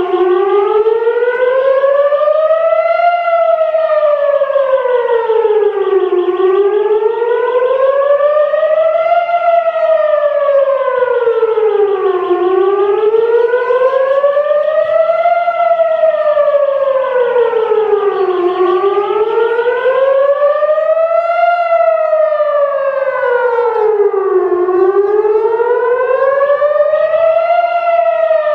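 Emergency warning siren wailing, its pitch rising and falling slowly and evenly, about once every six seconds, without a break.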